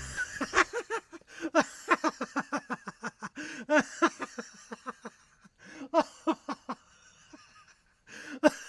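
Laughter: a long run of short, pitched 'ha' syllables at about three or four a second, broken by pauses, with a sharp click near the end.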